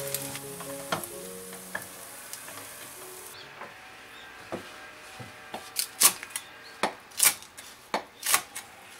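Rice sizzling as it crisps in a frying pan, cutting off about three seconds in. After that comes a string of sharp clicks and knocks from a utensil against the pan or dish.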